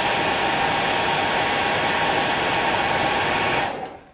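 Hair dryer running steadily, a rushing hiss with a tone in it, blowing warm air over a fly's hackle to set the fibres back; it stops shortly before the end.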